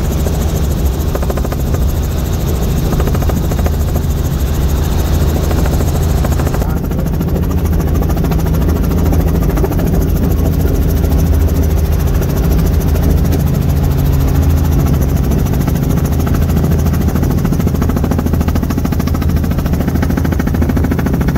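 Helicopter rotor and engine running steadily, heard from on board during flight: a loud low hum with a rapid rotor pulse. The high hiss above it drops away suddenly about seven seconds in.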